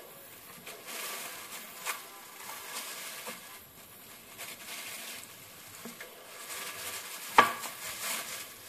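A knife slicing through a slab of homemade nougat on a plastic sheet: scraping, with small clicks and one sharp knock about seven seconds in.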